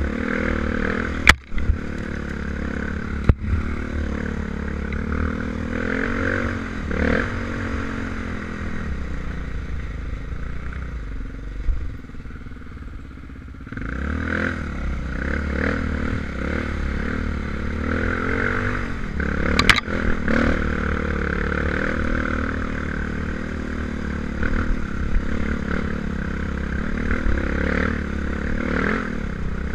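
Enduro dirt bike's engine running under changing throttle, the revs rising and falling as it rides a leaf-covered forest trail, with a few sharp knocks about a second in, near three seconds and near twenty seconds. The engine drops quieter for a couple of seconds before the middle, then picks up again.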